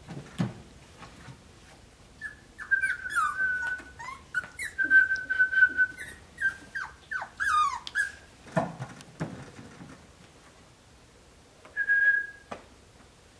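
Cavalier King Charles Spaniel puppy whining: a run of high, thin whines, some held and some falling in pitch, then a few soft thumps of play and one more short whine near the end.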